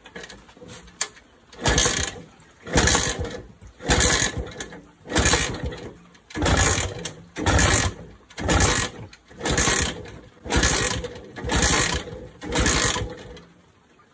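Vintage Iso motorcycle being kick-started about eleven times, roughly once a second, each kick spinning the engine over briefly without it catching. The owners put the failure to start down to fuel starvation: petrol not getting through an oxidised filter and a carburettor jet that is completely blocked.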